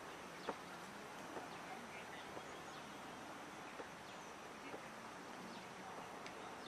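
Faint outdoor ambience with a few soft clicks and faint bird chirps.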